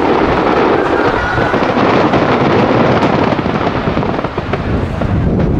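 Aerial firework shells bursting one after another, their booms and crackles running together into a continuous loud rumble.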